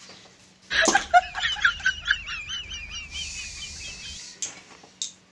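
A bird's rapid run of wavering chirps, lasting about three seconds, opening with a sharp knock about a second in, with a hiss joining near the end.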